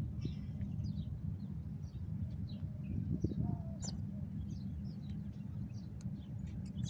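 Small birds chirping in short, high notes, scattered throughout, over a steady low rumble.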